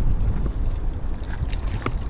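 Wind buffeting the microphone as a steady low rumble, with two short sharp clicks near the end.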